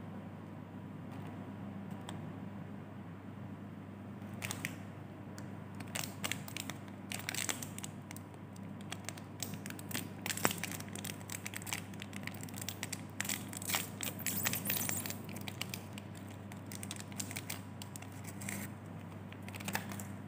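Crinkly plastic wrapper of a packaged chocolate cupcake being torn open and crumpled by hand, with irregular crackles starting about four seconds in and going on until near the end.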